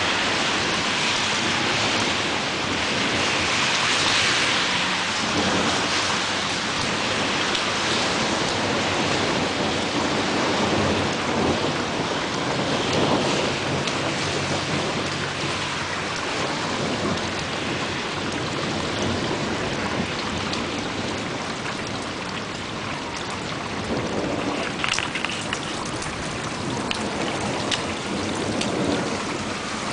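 Thunderstorm: steady rain falling and splashing on surfaces, with rumbles of thunder.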